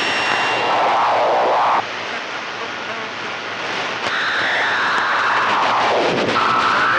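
CB radio receiver on an open channel: loud hiss and band noise with warbling, garbled sideband signals sliding up and down in pitch. It eases off for a couple of seconds, then a steady heterodyne whistle comes in near the end.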